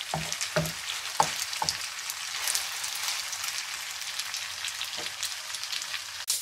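Spaghetti with minced meat sizzling in a non-stick wok as a wooden spoon stirs it, the spoon knocking against the pan four times in the first two seconds and once more near the end.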